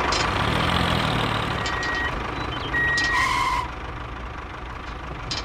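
Tractor engine running, with two short high beeps about two and three seconds in; the engine sound drops quieter a little past halfway.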